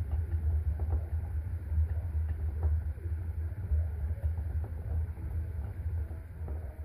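Pet hamster running in its cage's exercise wheel: a steady, fluttering low rumble with faint ticks and rustles.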